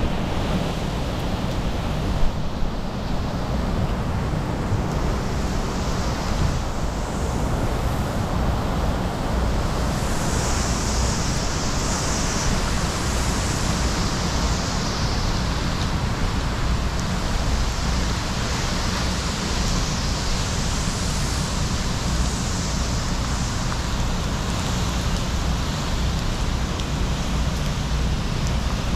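Tropical-storm wind and heavy rain, a steady dense rush with a low rumble of wind on the microphone. About ten seconds in, the hiss of the rain grows louder for several seconds, as in a heavier squall.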